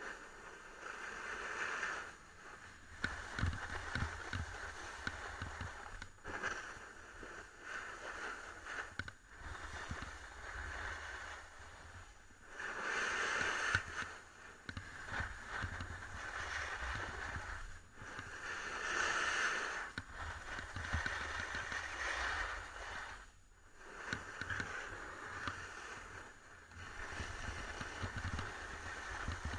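Edges scraping and hissing across groomed, hard-packed snow on a downhill run, swelling and fading every few seconds as the rider turns, with wind buffeting the camera's microphone underneath.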